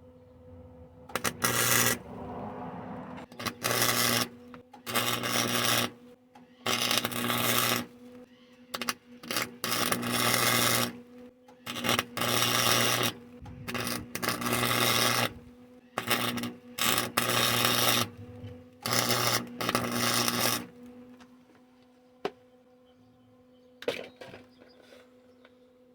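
Electric welder arc crackling in about a dozen short bursts of half a second to a second and a half each, over a steady electrical hum: short welds laid on a thin sheet-metal door check stop on a Toyota Sienna door to repair it where it has broken loose.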